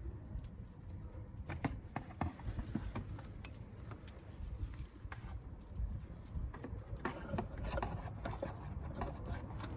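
Scattered small clicks and knocks of hands handling parts as a hose is fitted onto a brake bleed valve and the catch container is positioned, over a low rumble.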